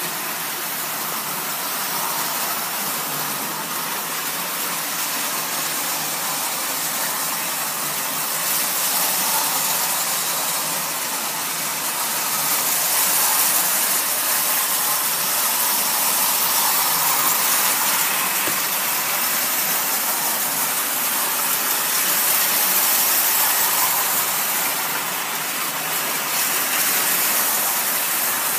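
Marx tinplate toy diesel train running: a steady whirring, rattling hiss of its electric motor and metal wheels on three-rail tin track, swelling louder a few times as it passes close.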